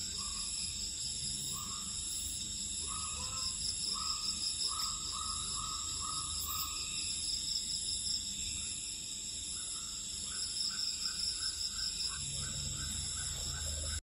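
Tropical rainforest ambience: a steady, high insect chorus, over which a bird calls in runs of short repeated notes, coming and going several times.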